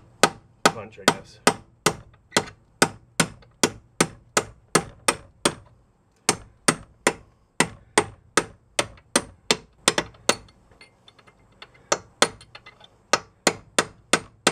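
Hammer striking a chisel held against a bolt end, tapping the bolt through the strut-to-knuckle bracket with steady metal-on-metal blows, about two or three a second. The blows come in three runs, with brief pauses a little over five seconds in and again about ten seconds in.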